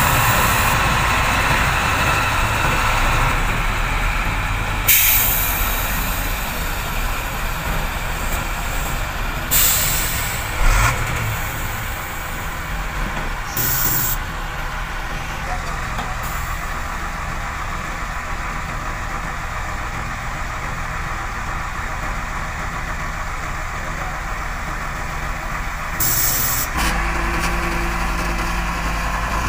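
Heavy diesel engines of an excavator and dump trucks running steadily, broken four times by short sharp hisses of truck air brakes.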